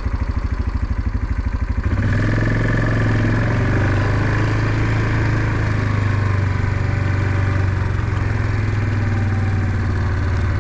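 A small vehicle engine idling with a rapid, even throb, then picking up about two seconds in and running steadily.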